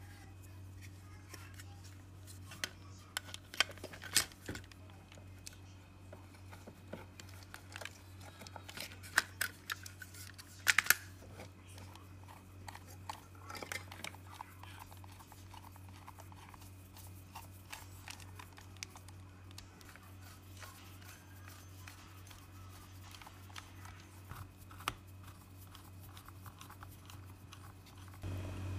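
Scattered plastic clicks and taps from a Sony DualShock 4 controller's shell halves being pressed together and its case screws driven in with a small precision screwdriver. The loudest clicks come in bunches about four and ten seconds in. A steady low hum runs underneath.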